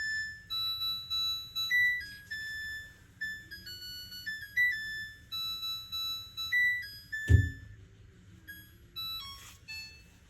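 Samsung Grande washing machine's electronic beeper playing its end-of-cycle melody, a tune of clear beeping notes, signalling that the quick-wash course has finished. A single thump about seven seconds in.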